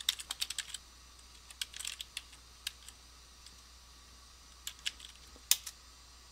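Typing on a computer keyboard: a fast run of keystrokes, then short scattered groups of key clicks with pauses between. A single louder keystroke about five and a half seconds in is the Enter key sending the command.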